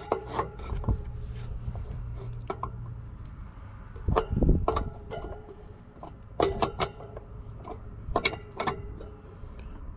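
Adjustable wrench working the motor-mount nuts on a condenser fan grille: scattered metallic clicks and clinks, coming in small bunches.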